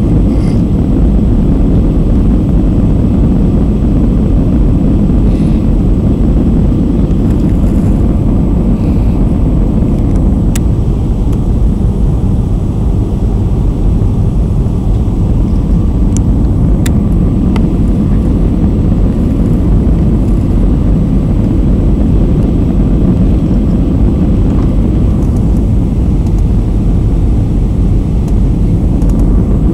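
Steady cabin noise of a jet airliner on its descent, heard from inside the cabin: a loud, even rumble of engines and rushing air, with a couple of faint clicks.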